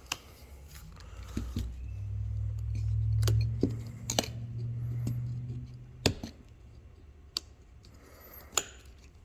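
Irregular clicks and taps of small plastic mobile-phone parts being handled, such as battery covers and a memory card. A low rumble swells and fades about 1.5 to 6 seconds in.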